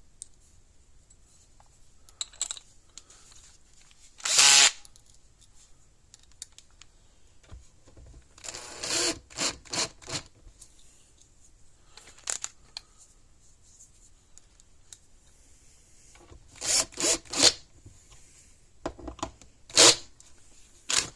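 Cordless drill-driver running in short bursts, driving screws to close up a fence charger's case.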